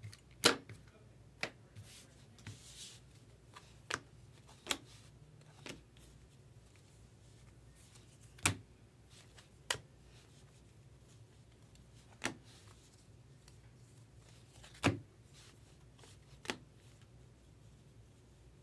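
Baseball trading cards being flipped through and set down by hand: a string of sharp, irregular clicks and flicks, about a dozen, a few seconds apart at most.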